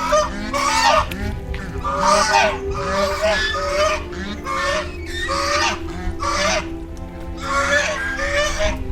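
Waterfowl honking: about ten harsh honks in quick clusters, over a steady background music bed.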